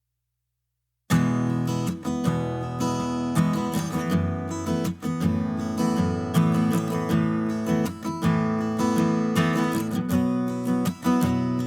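Background music: acoustic guitar strumming chords, starting about a second in.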